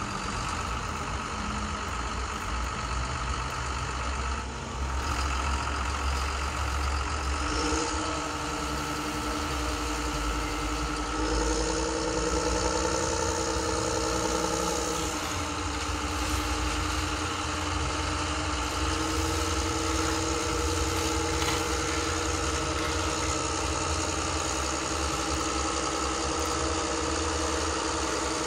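Truck engine idling, steady, shifting pitch a few times.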